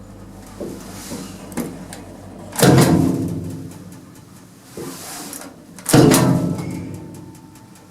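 Passenger lift clunking in a small car: two loud bangs about three seconds apart, each ringing on for a second or so, with a few lighter knocks before and between them.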